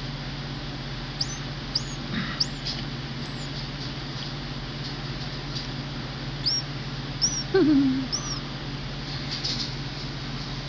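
Just-hatched baby bird cheeping: short, thin, high peeps that rise and fall, three in a row about a second in and three more past the middle, over a steady low hum.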